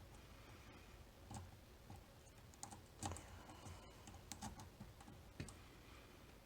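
Faint, irregular small clicks of a lock pick working the pins of a Mul-T-Lock Interactive cam lock, the sharpest click about three seconds in.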